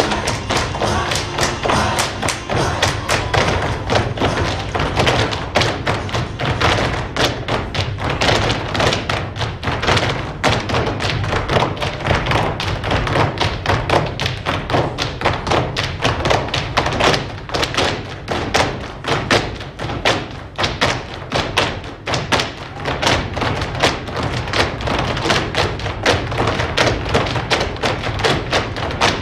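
Group flamenco footwork (zapateado) in bulerías: many dancers' heeled flamenco shoes stamping and tapping a fast, dense rhythm on the stage floor.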